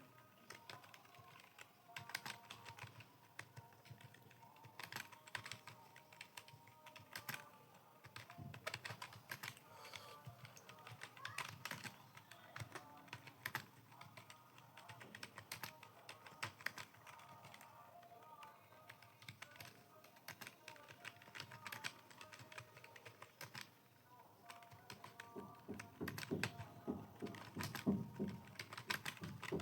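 Typing on a computer keyboard: a quick, irregular run of key clicks. The strokes get louder and deeper near the end.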